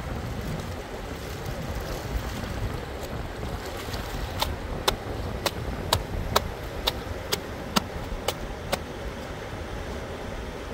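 Fast-flowing river rushing steadily over stones. In the middle, a run of about ten sharp knocks comes about two a second for several seconds.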